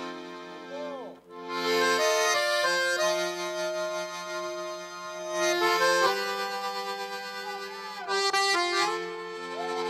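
Accordion playing sustained chords that change every second or so, with a short break about a second in: a solo accordion introduction in Northeastern Brazilian style.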